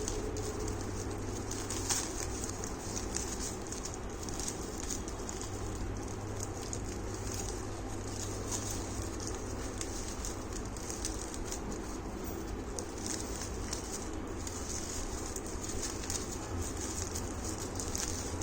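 Packaging rustling and crinkling in a run of small irregular crackles as items are unwrapped by hand, over a steady low hum.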